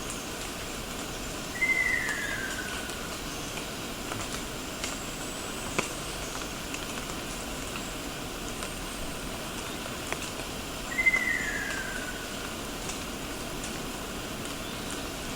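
Ruddy kingfisher calling twice, about nine seconds apart: each call is a single descending whistle lasting just over a second. A steady hiss runs underneath, and there is one sharp click midway.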